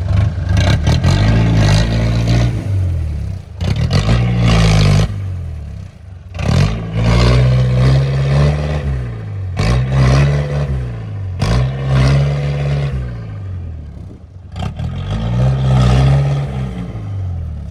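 Off-road vehicle engine revving up and falling back about six times, with clattering over it, as it works over rough ground.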